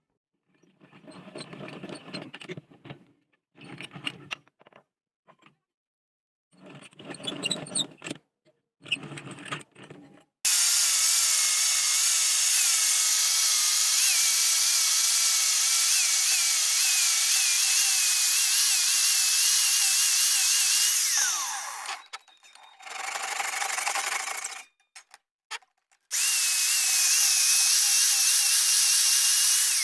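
A handheld electric power tool, such as a drill or grinder, running at full speed on the steel knife blade. It winds down with a falling pitch about two-thirds of the way in, then starts again near the end. Before it starts, there are a few short bursts of rubbing or scraping.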